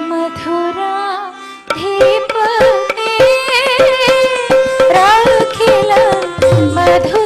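Odissi classical music: a wavering melody over a steady drone note, with mardala barrel-drum strokes coming in about two seconds in and running in a quick, dense rhythm.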